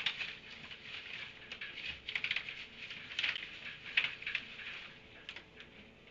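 Small animals squabbling: a run of short, irregular, scratchy bursts, the loudest about four seconds in, dying away near the end.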